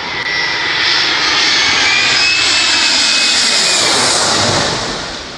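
Jet airliner engines as the plane passes low directly overhead: a loud rush of jet noise with a high whine. It swells about half a second in, holds, and fades near the end.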